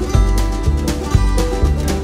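Background music: upbeat bluegrass-style tune on plucked string instruments with a steady beat.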